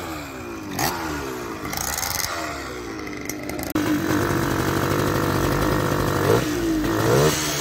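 Vintage motorcycle engines running close by. In the first half several engine notes fall in pitch. About four seconds in, one louder engine takes over, running steadily, and it revs up briefly twice near the end.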